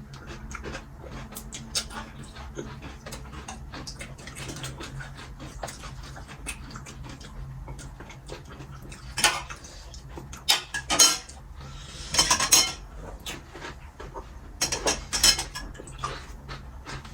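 Pani puri being eaten fast: crisp puris crunching and pani slurped, with small clicks and clinks throughout. Several louder bursts of crunching and slurping come in a cluster in the second half.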